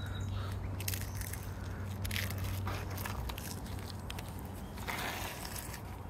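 Dry crackers being crushed and crumbled between the fingers: irregular crackling and crunching with scattered small clicks, and a longer crunch about five seconds in, over a low steady hum.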